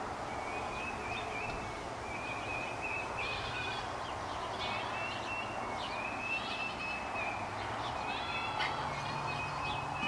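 Birds calling again and again in short, high, clear notes, several overlapping near the end, over a steady background hiss.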